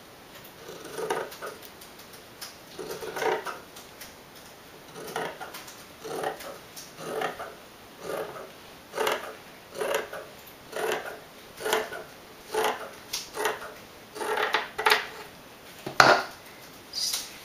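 Large fabric scissors cutting through thin, folded fabric, one crunching snip about every second, with a sharper, louder snip about sixteen seconds in.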